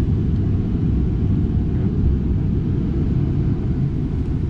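Steady low rumble inside an airliner cabin parked after landing.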